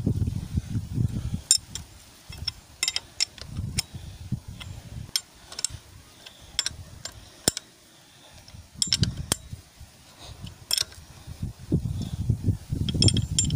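A steel ring spanner clinks and scrapes on the cylinder head nuts of a small Comet engine as they are tightened down. Scattered sharp metal clicks come between duller low knocks and rubbing from handling the tool.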